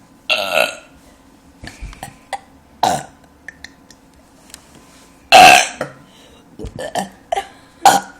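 A series of deliberate, forced burps, short and separate, with the loudest about five seconds in and a cluster of smaller ones near the end.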